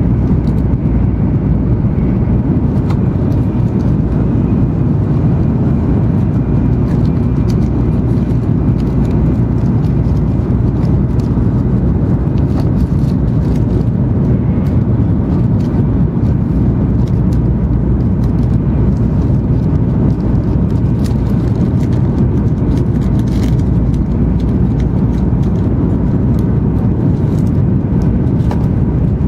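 Steady low rumble and rush of an N700 series Shinkansen running at high speed, heard from inside the passenger cabin, with a few faint clicks scattered through it.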